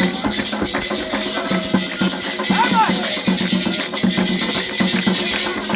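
Candomblé ritual music for Xangô: atabaque hand drums played in a fast, even rhythm with shakers, and voices singing over them.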